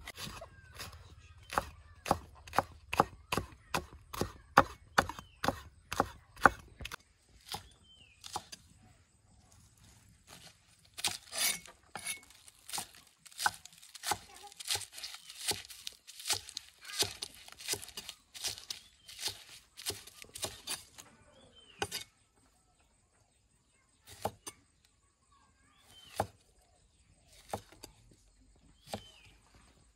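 Chinese cleaver chopping vegetables on a thick round wooden chopping block. A steady run of knocks through red chillies comes first, then a faster, denser run of chops through spring onions in the middle, and only a few scattered cuts near the end.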